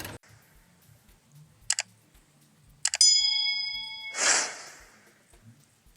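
A single bright, bell-like ding that rings and fades over about a second, after a few sharp clicks, then followed by a short rushing burst of noise.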